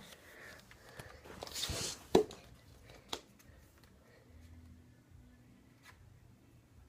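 Handling of an Instax Mini 8 instant camera: a soft rustle, then one sharp click about two seconds in and a few fainter clicks later, in a small quiet room.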